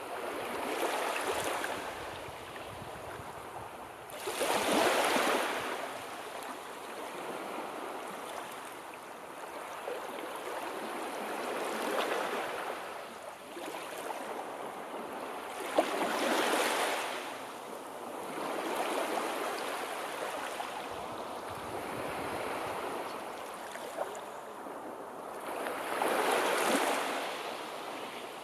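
Sea waves breaking and washing in, the surf swelling and falling back five or six times at irregular intervals, with one brief click about halfway through.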